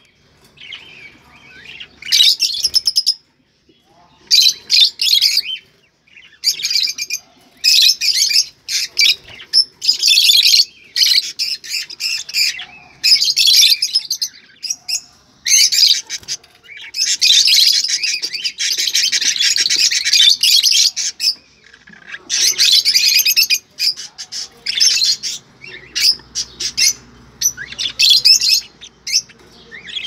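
Caged budgerigars chirping and warbling in quick, broken bursts of chatter, with a longer unbroken run of warbling in the middle.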